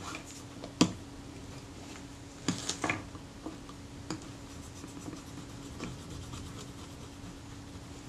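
Small objects being handled and set down on a workbench, with some scratching and rubbing. There is a sharp tap about a second in, a short cluster of clicks near three seconds and a softer tick just after four seconds, over a faint steady hum.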